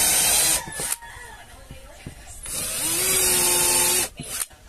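Bosch cordless drill boring into the edge of a 3/4-inch plywood board in two short runs. The first stops about half a second in. The second spins up with a rising whine about two and a half seconds in and stops about a second and a half later.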